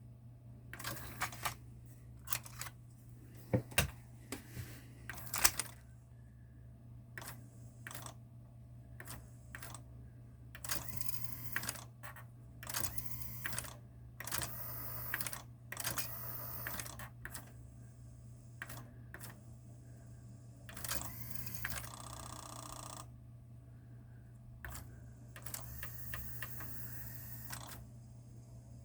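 Akai GX-9 cassette deck's tape transport being operated: a long series of mechanical clicks from its keys and mechanism, broken by short whirring stretches of the tape running or winding, over a steady low hum.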